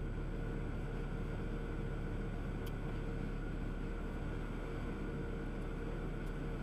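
Steady road and engine noise of a semi-truck cruising on the highway, heard from inside the cab: an even low rumble with a faint steady hum.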